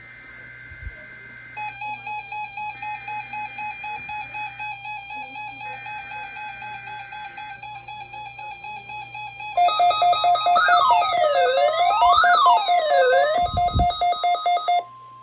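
NOAA Weather Radio alert data: three short bursts of screechy digital SAME header data, under a steady stepped electronic beeping tone. About nine and a half seconds in, a louder siren-like tone takes over, sweeping up and down, and cuts off near the end as a steady alert tone begins.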